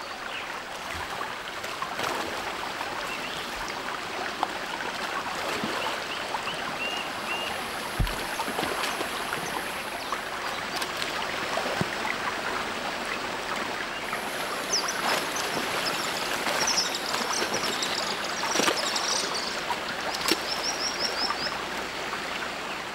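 Fast river water rushing over rapids in a steady roar of water, with a few sharp splashes.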